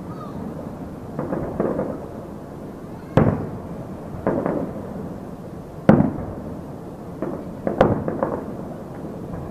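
Fireworks shells bursting every second or two: softer pops alternating with three sharp loud bangs, each trailing off in an echo.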